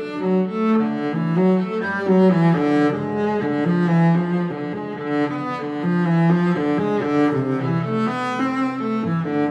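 Instrumental background music: a melody of held low notes that change every half second or so.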